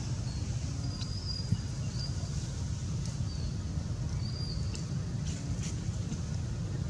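Outdoor ambience: a steady low rumble with faint, short, high bird chirps scattered through it and a few soft clicks.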